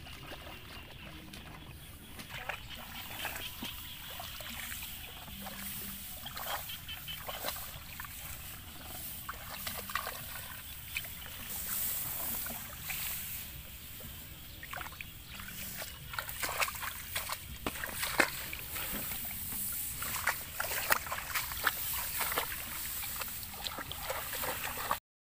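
Footsteps wading and splashing through a flooded rice paddy, with rice plants brushing and rustling against legs and clothing in an irregular run of swishes and splashes.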